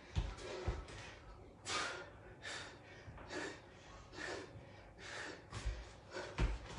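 A person breathing hard during mountain climbers, with loud exhales about once a second. Quick thumps of feet landing on a floor mat come in the first second and start again near the end.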